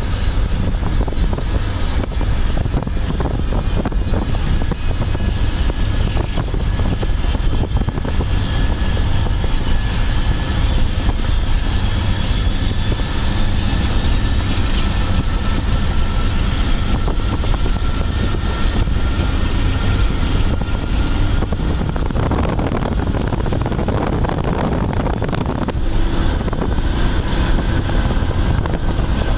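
Steady rumble and rush of air from a moving Amtrak passenger train heard from a vehicle pacing it: the GE P42DC Genesis diesel-electric locomotives running at speed, with the rails and the car's own wind noise mixed in. A faint high whine drifts slowly in pitch.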